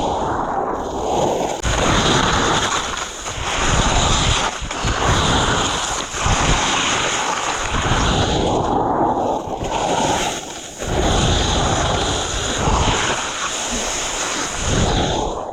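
Wind rushing over the microphone together with skis hissing and scraping through soft, wet mogul snow; the rush rises and falls every second or two with the turns.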